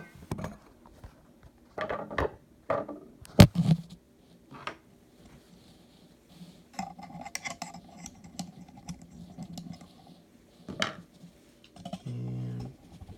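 Screwdriver and steel parts of a Marlin 336 lever-action rifle clicking, knocking and scraping as a part is pressed down and worked into its groove; a string of sharp metallic clicks with scraping between them.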